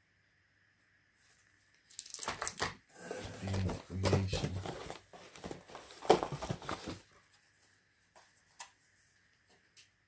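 Rustling and crinkling of plastic-wrapped cardboard boxes as a hand rummages through a shipping carton of boxed models, with many light knocks of box against box. It begins after about two seconds of quiet and lasts about five seconds, followed by a few light taps.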